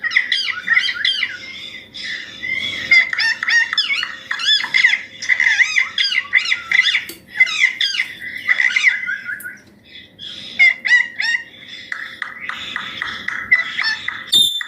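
Green ringneck parakeet chattering: a rapid, continuous stream of short chirps sliding up and down in pitch. A sharp click comes near the end.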